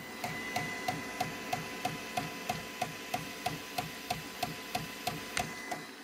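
Creality K1C 3D printer's extruder clicking about three times a second while trying to push filament, over a steady whine from the printer. The clicking is the sign of a clog: the extruder cannot feed the filament through.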